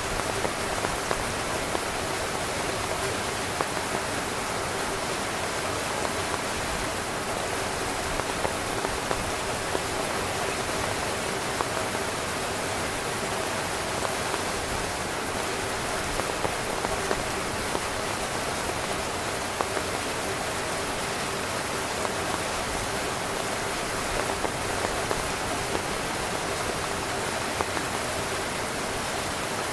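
Heavy rain falling steadily on a tent, a dense even hiss with louder single drop hits standing out every second or so.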